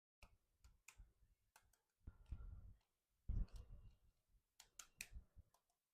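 Small toys being handled close to the microphone: faint scattered sharp plastic clicks with a few short, soft bumping and rubbing sounds.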